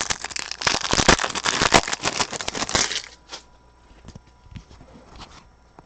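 Foil wrapper of a football trading-card pack crinkling as it is torn open and handled, a dense crackle for about three seconds, then a few light clicks of cards being handled.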